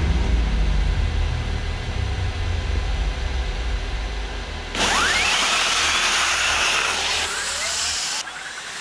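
Battery-electric Formula Student race car launching hard from standstill: about five seconds in, a sudden rush of noise with a fast-rising whine as it accelerates away, following a low fading rumble.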